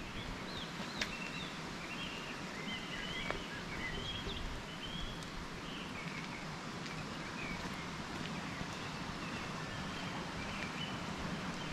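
Steady rushing of a forest stream in a rocky gorge, with small songbirds chirping and twittering over it in short, high calls, and a couple of faint clicks.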